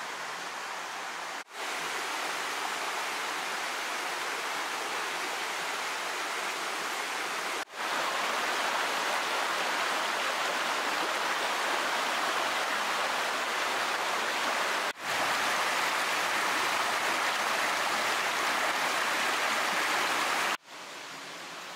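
Mountain stream rushing over rocks, a steady roar of water. The sound breaks off at four hard cuts, each shot at a different level, and is loudest near the end, close to water spilling over a small cascade.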